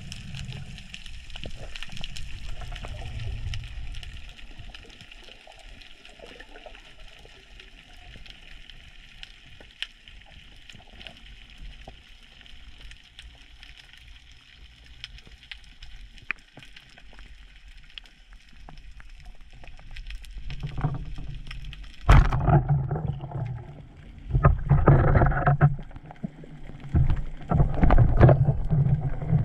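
Underwater sound through an action camera's housing on a freedive: a quiet hiss with scattered crackling clicks. From about 22 seconds in, loud muffled water rushing and knocking as the diver moves.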